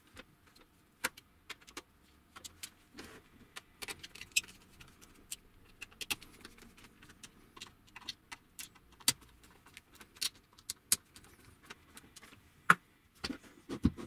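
Scattered light clicks, taps and small scrapes of hands handling a 3D-printed plastic router jig and a rotary tool, with a small screwdriver turning the clamp screws; the tool's motor is not running. A few louder knocks come near the end.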